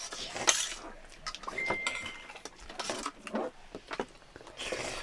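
A spoon clinking and scraping on a stainless steel plate of rice and pork during eating, with soft chewing sounds. One clink rings briefly about a second and a half in.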